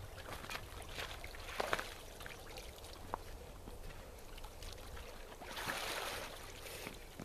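Icy water splashing and sloshing in a hole cut in lake ice as a winter bather comes up from a full dunk and moves about in it. There are a couple of sharp splashes about a second and a half in and a longer spell of sloshing around six seconds in.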